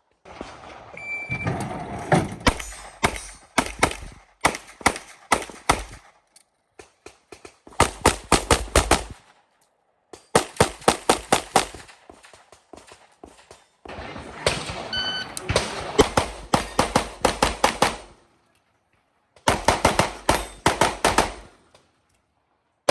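Fast strings of pistol shots from a compensated .38 Super open-division race gun. The shots come several to a burst in quick succession, the strings separated by short pauses and sudden cut-offs, with a brief high beep about a second in.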